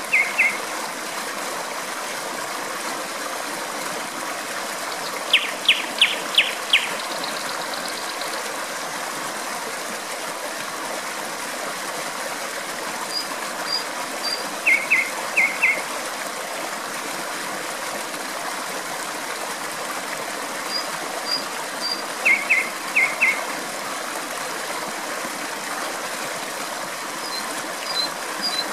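Flowing water giving a steady rushing, with a nightingale singing short phrases of sharp repeated notes every several seconds. The loudest is a run of five ringing notes about five seconds in, ending in a brief buzzy trill.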